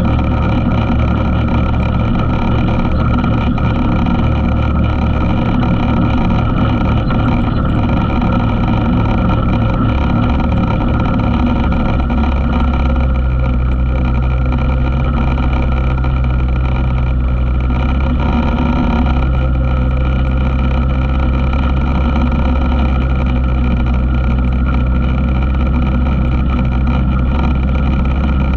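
ATV engine running steadily while riding, its low note shifting about twelve seconds in and again around nineteen seconds.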